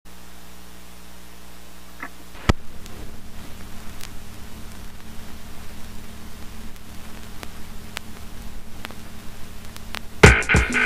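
Vinyl record playing its lead-in groove: a low hum, a sharp click about two and a half seconds in, then surface hiss with scattered crackles and pops. Drum-led music starts just before the end.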